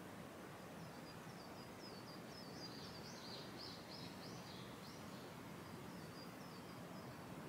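Faint birdsong: a small bird repeating short, high, down-slurred chirps, with a busier run of notes in the middle, over a steady low outdoor background noise.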